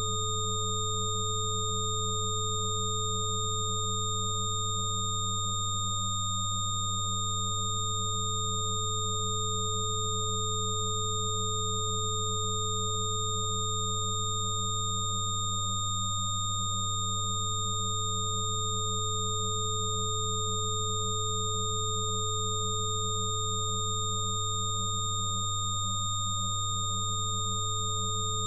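Steady synthesized sine tones of a frequency-therapy track layered together: a strong low hum with several thin higher pure tones above it. One middle tone fades out briefly three times, about ten seconds apart.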